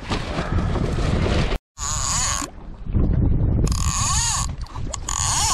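Wind and water noise on the kayak, then after a brief cut a Shimano SpeedMaster lever-drag reel's drag buzzing in three bursts as a hooked fish pulls line off.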